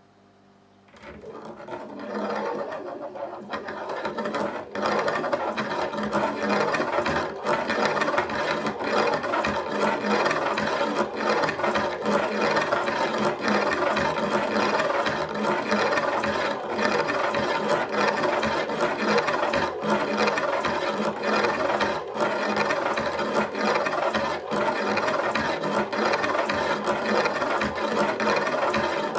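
Homopolar motor's brass axle with disc-magnet wheels running round two concentric metal rings, a continuous rattling scrape of metal on metal with many small clicks. It starts about a second in and builds to full speed over the next few seconds, then runs steadily.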